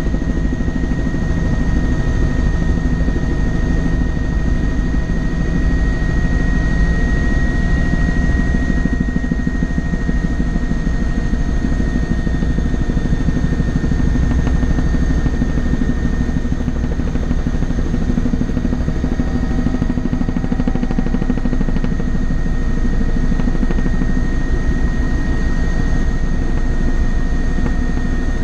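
Helicopter in flight: steady engine and rotor noise, a dense low rumble with a steady high whine over it.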